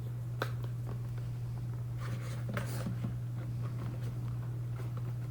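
Quiet handling of the box and packaging: a sharp click about half a second in, then brief rustles of paper or cardboard around two to three seconds in, over a steady low hum.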